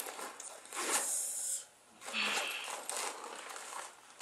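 Zipper on a JanSport backpack being pulled in two long runs, about a second in and again near the middle, with the rustle of the bag's fabric.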